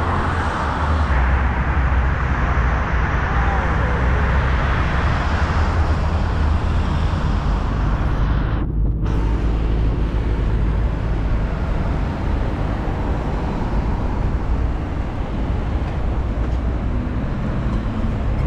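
Wind rumbling on the microphone of a handlebar-mounted camera while cycling, with city road traffic running alongside. The higher sound drops out briefly just before the middle.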